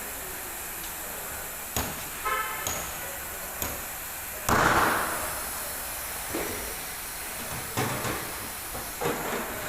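Workshop noise over a steady hiss: a few sharp knocks and clicks, and a short louder burst of hissing about halfway through.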